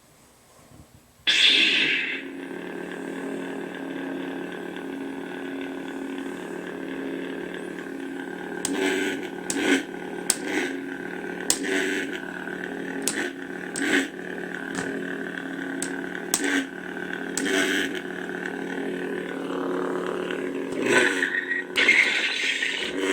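Crystal Shard v1 lightsaber soundboard playing through a tiny speaker: the saber ignites suddenly about a second in and settles into a steady hum, then from about eight seconds on the hum swells with swings and is broken by repeated sharp clash hits.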